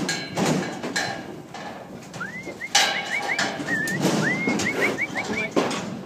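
A few dull knocks and thumps, with a bird whistling two short phrases of rising notes between about two and four seconds in.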